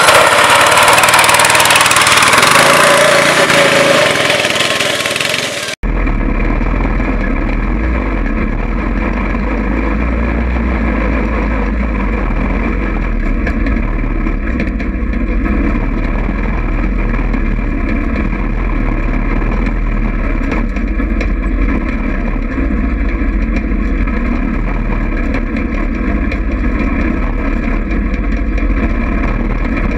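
Go-kart engine running as the kart drives, heard from on board as a steady drone with a low rumble. For the first six seconds a louder rushing noise, close by the rear wheel, cuts off suddenly.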